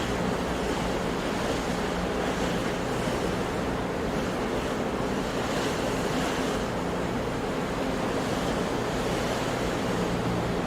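Sea surf washing steadily onto a shore, swelling a little every few seconds as waves break.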